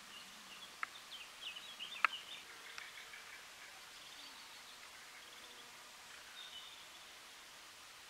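Wild songbirds singing faintly in short bursts of high chirps, busiest in the first few seconds and again near the end. Two sharp ticks stand out, one about a second in and a louder one about two seconds in.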